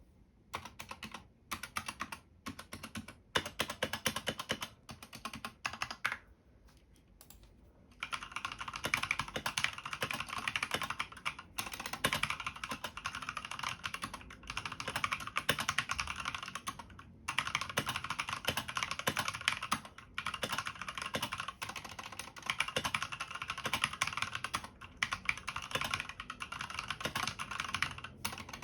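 Skydigital BT61 mechanical keyboard with stock, unmodified red linear switches being typed on: short bursts of keystrokes for the first six seconds, a brief pause, then fast, continuous typing from about eight seconds in.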